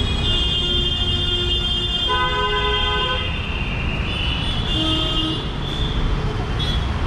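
Busy city road traffic: engines and tyres make a steady rumble while vehicle horns honk over it, several held for a second or more, overlapping.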